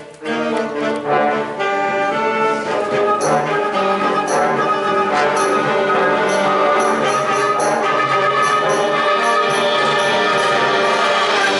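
Concert wind band playing a loud, brass-heavy passage with sustained chords. From about three seconds in, sharp percussion strikes cut through at intervals.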